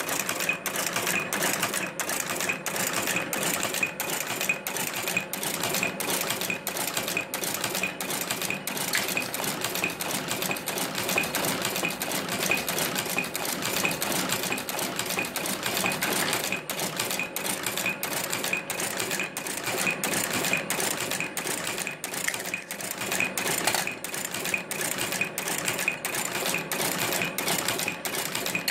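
English-made Monotype composition caster, converted for casting strip material, running: a steady rhythmic mechanical clatter of cams, levers and the mould blade cycling, about three strokes a second.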